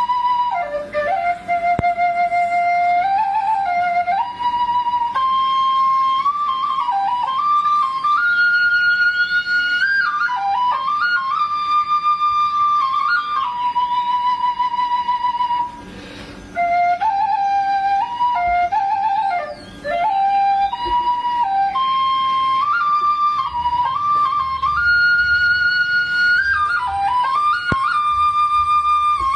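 Background music: a solo flute playing a melody with held notes and quick runs, pausing briefly about halfway through.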